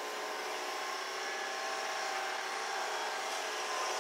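Steady city street noise: a continuous hum of traffic with several faint steady tones running through it and no sudden sounds.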